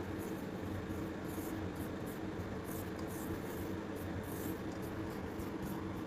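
A hand rubbing and squeezing a crumbly mix of potato and tapioca starch in a bowl: soft, irregular scratchy rustles over a steady low hum.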